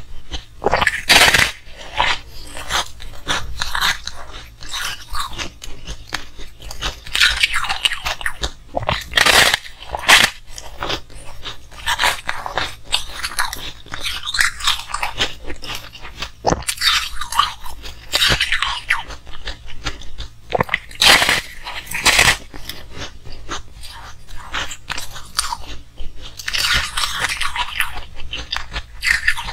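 Close-miked crunching and chewing of frosty coloured ice: sharp crunchy bites into an ice block, each followed by a run of chewing crunches, in irregular bursts throughout.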